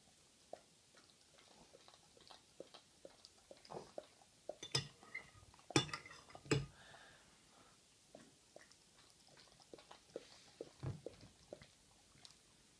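A dog eating off a spoon, with soft chewing and mouth noises throughout. A metal spoon clinks sharply against a ceramic bowl three times in the middle.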